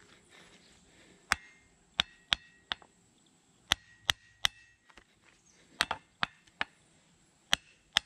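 Ball-peen hammer rapping the yoke of a freshly rebuilt U-joint on a Dodge 2500 double cardan drive shaft: about a dozen sharp metal-on-metal raps in uneven groups, some with a short ring. The blows seat the new U-joint's bearing caps so the joint does not turn rough.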